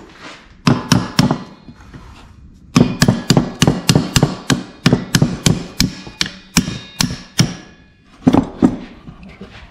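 Hammer striking a steel accelerator pedal bracket, tapping a tight-fitting rod into place. There are three blows about a second in, then a quick, even run of three or four blows a second for several seconds, and two more near the end.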